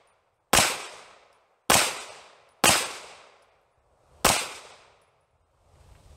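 Four 9mm pistol shots from a Sig Sauer P320 X5 Legion, one to one and a half seconds apart, each one fading out over a fraction of a second.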